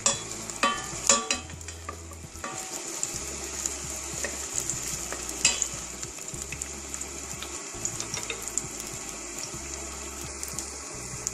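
Sliced onions sizzling in a little hot oil in a stainless steel pot, with a steady hiss. A wooden spatula stirring them knocks against the pot several times in the first second and a half and once more about five and a half seconds in.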